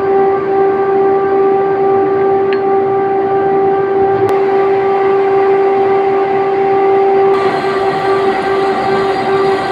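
Steady, loud whine of machine-shop machinery, a constant pitched drone over a bed of mechanical noise; near the end the drone begins to pulse on and off.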